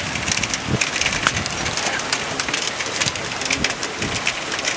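Thunderstorm rain falling and spattering on hard surfaces: a steady hiss dotted with many sharp ticks of drops striking close by.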